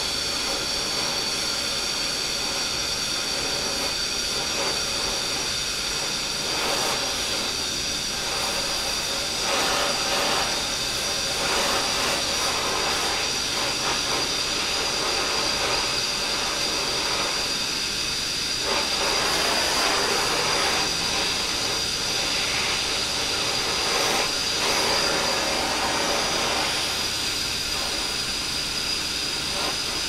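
Gas brazing torch flame hissing steadily against a copper refrigeration pipe joint, with dry nitrogen purging through the tube to keep scale from forming inside.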